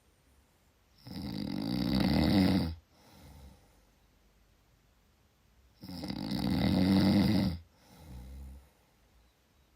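Snoring: two loud snores about five seconds apart, each lasting nearly two seconds and growing louder, each followed by a short, softer snore.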